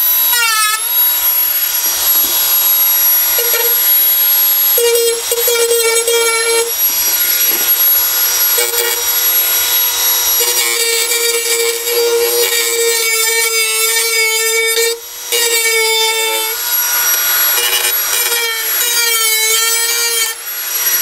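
Dremel rotary tool grinding on the Jeep's steel body, taking the sharp edges off freshly cut-down studs. Its high whine runs on with the pitch shifting as the bit bears on the metal, and it stops briefly about fifteen seconds in.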